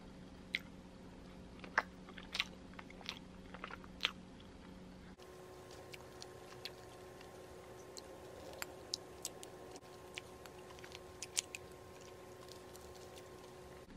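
A person eating a slice of matcha mille crepe cake close to the microphone: soft chewing with scattered small mouth clicks.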